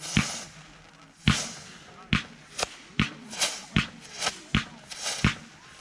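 Pyro King F-16 aerial firework bursting overhead: about a dozen sharp bangs in quick, uneven succession, each followed by a brief crackling hiss.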